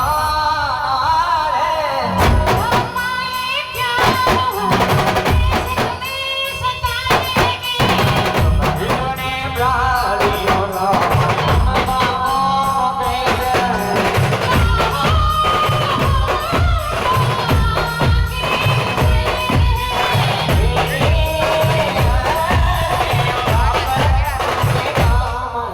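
A band playing a wavering melody over a steady, driving drum beat with tambourine-like jingles.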